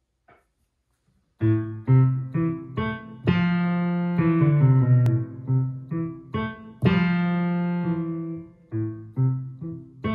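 Digital synthesizer keyboard on a layered piano-and-pad patch, playing a slow piano piece with both hands: single notes and short chords in the low-middle register, some ringing on, starting about a second and a half in.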